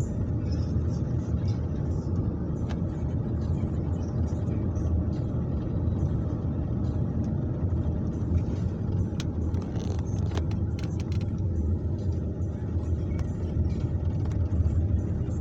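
Steady low rumble of a car driving on a snow-covered road, heard from inside the cabin: road and engine noise, with a few faint clicks about two-thirds of the way through.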